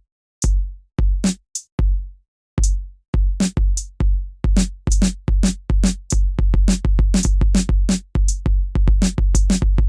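Background electronic music: a drum-machine beat with deep kick drums and crisp snare and hi-hat hits, about two beats a second.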